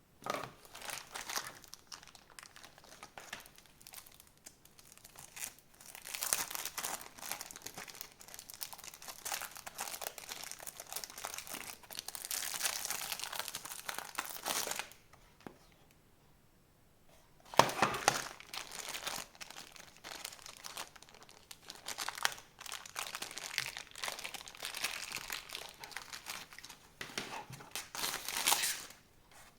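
Plastic packaging crinkling and rustling as it is handled, in irregular bursts with a short pause about halfway. A sharp knock, the loudest sound, comes a little past the middle.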